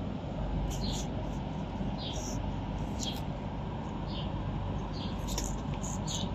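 Short, high-pitched chirps scattered irregularly through, over a steady low background rumble.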